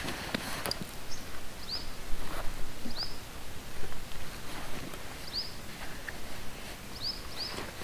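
A bird calling over and over with short, high, curved chirps, one every second or so, against rustling and light knocks as a backpack is hoisted and its straps adjusted.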